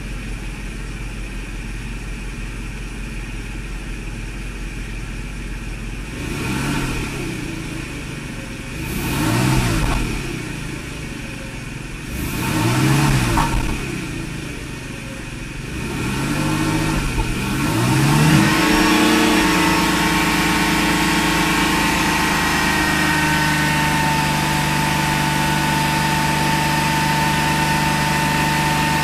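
Mercedes V8 engine idling, then blipped four times, each rev rising and falling back, then held at a steady raised speed of about 3,000 rpm. It picks up and drops back cleanly after the throttle body reinstall, while running without its mass airflow sensor.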